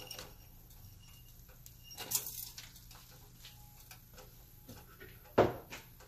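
Kitchen handling sounds around a stainless steel pot as brown sugar goes in: a brief rustle about two seconds in, and a single sharp knock near the end, the loudest sound, over a faint steady hum.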